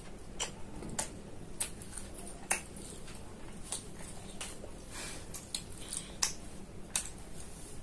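Close-up eating sounds: wet lip smacks and mouth clicks of chewing mutton liver curry and roti, about a dozen sharp irregular clicks over a steady low background hum.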